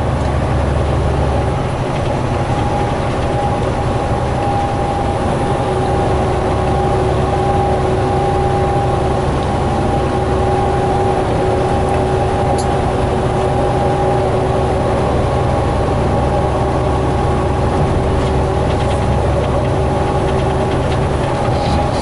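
Cab noise of a semi truck cruising on the highway: a steady diesel engine drone under road and wind noise, with a steady tone running over it.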